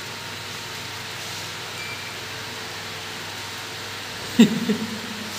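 Sugar pulverizer (grinding mill) running with a steady, even rushing noise. About four and a half seconds in, a brief loud voiced sound from a person cuts in.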